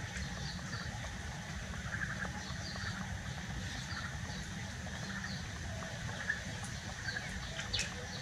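Outdoor background: a steady low rumble, with faint high chirps repeating in twos and threes about every second and a couple of small clicks near the end.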